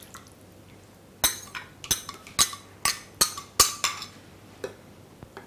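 A steel ladle clinking against a glass bowl as it scrapes the last of the dal water out: about seven sharp, ringing clinks in quick succession starting a little over a second in, then one fainter clink near the end.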